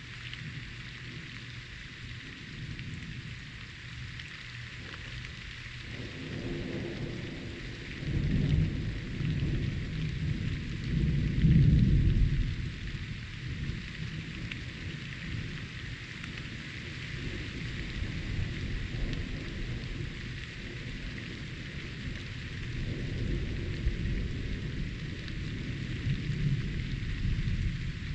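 Steady rain with rolling thunder: a low rumble builds about six seconds in, peaks twice, loudest around twelve seconds, then fades to a lower rumble that swells again near the end.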